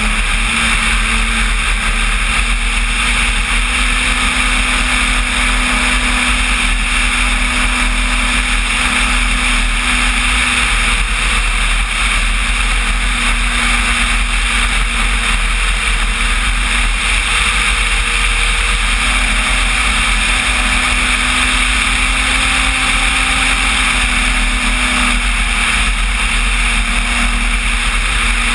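Onboard sound of an electric-powered RC Cessna 185 floatplane in flight: its motor and propeller run as a continuous loud drone over a steady rush of air, and the pitch steps up and down a little a few times.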